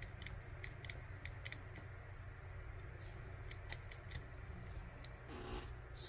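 A small knife scoring and cutting the rubber jacket of a microphone cable: faint scattered clicks and scrapes, with a louder scratchy rustle near the end. A low steady hum sits underneath.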